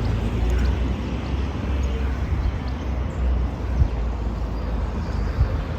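Steady outdoor background noise with a deep, fluttering rumble, and two brief low knocks, one about two-thirds of the way in and one near the end.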